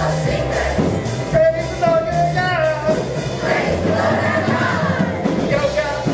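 Live music: a group of voices singing a worship song over a band, with held bass notes underneath.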